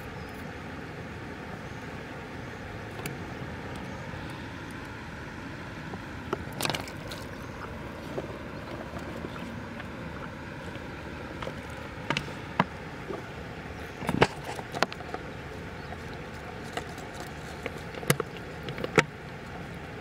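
Steady outdoor background hiss, broken by scattered sharp knocks and clicks, a few at a time in the second half, as plastic bottle traps and their string are handled in shallow river water.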